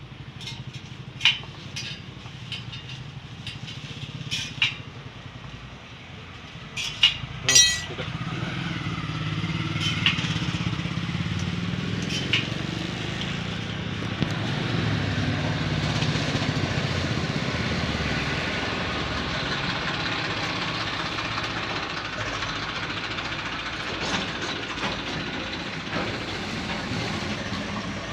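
A few sharp knocks, then from about a third of the way in a motor vehicle's engine runs close by at a steady level.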